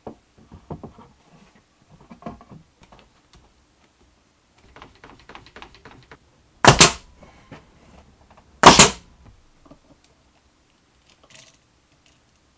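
Small clicks and knocks of tools and pine boards being handled, then two loud, sharp bangs about two seconds apart, about halfway through.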